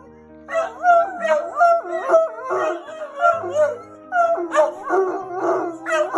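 A red bloodhound and a second dog howling together, a run of long, wavering howls that starts about half a second in.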